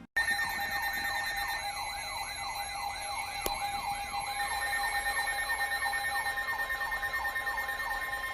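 Electronic siren-style emergency alert tone, warbling up and down about three times a second over steady held tones, announcing a flash flood warning. It starts abruptly, and there is a single click about three and a half seconds in.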